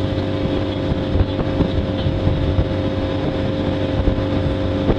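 Tow boat's engine running steadily at towing speed, a constant hum, over the rushing water of its wake, with a few brief knocks.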